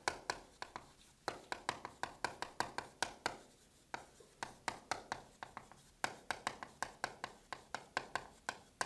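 Chalk writing on a blackboard: a quick, uneven run of taps and short scratches as each stroke lands, broken by a few brief pauses.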